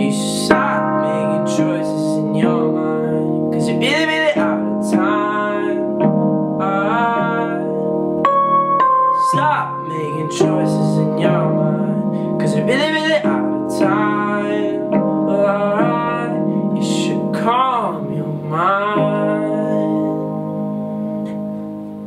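Digital keyboard playing sustained piano chords, with a man's voice singing wordless rising and falling lines over them. The last chord fades away near the end, closing the song.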